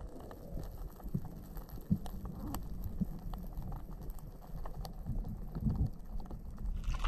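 Underwater ambience picked up by a diver's camera: a low rumble of moving water with scattered faint clicks and a few soft, dull knocks.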